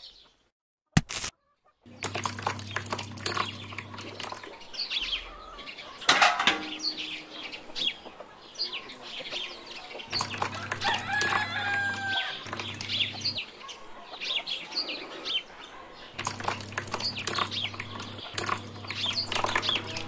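Birds chirping and chicken-like clucking calls over many scattered small clicks, with a low hum that comes and goes. This starts after about two seconds of near silence.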